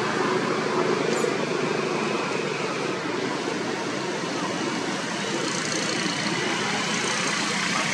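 Steady outdoor background noise: a constant hiss and rumble with no distinct events, of the kind of distant road traffic.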